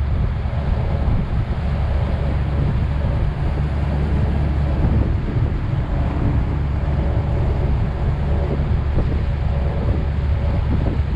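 Steady wind buffeting the microphone aboard a sailboat under way, a loud, even low rumble with no distinct events.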